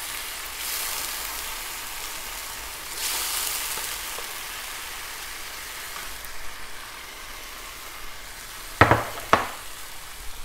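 Tomato-pepper stew sizzling in an enamelled cast-iron braiser on a gas burner while it is stirred with a wooden spoon, the sizzle swelling twice in the first few seconds. Two sharp knocks near the end.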